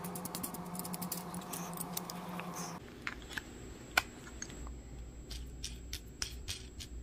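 Small clicks and scratches of a thread spool being handled and fitted into a fly-tying bobbin, with one sharper click about four seconds in.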